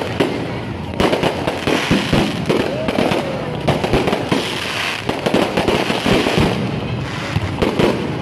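Aerial fireworks display: a dense, continuous run of bangs and crackling as shells burst overhead, with no pause.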